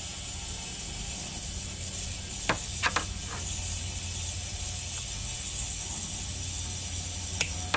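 A few light clicks of a small metal pick and carburettor parts being handled: three close together about halfway through and one more near the end, over a steady background hum.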